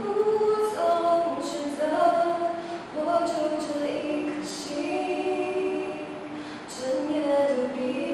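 Two young women singing a song a cappella, holding sustained notes with no instruments.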